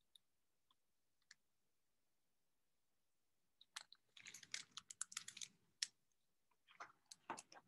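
Faint clicks and rustles of a picture book being handled and lowered, in a cluster about four seconds in and again near the end, after a few seconds of near silence.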